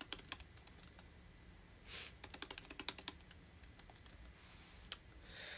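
Typing on a computer keyboard: quick runs of light key clicks, with one sharper click near the end and two short soft hisses between them.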